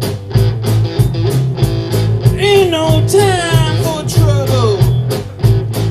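Live blues-rock band playing: electric guitar, electric bass and a drum kit keeping an even beat. About two seconds in, a high melody line with bending, wavering notes comes in over the rhythm.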